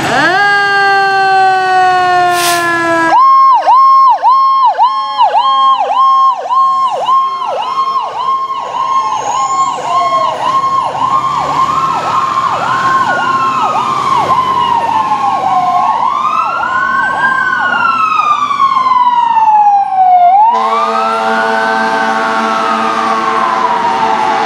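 Fire engine and ambulance Powercall electronic sirens: a falling tone, then a fast yelping pulse of about three cycles a second from about three seconds in, joined by a slower rising and falling wail. About twenty seconds in, a steady horn blast sounds under the wail.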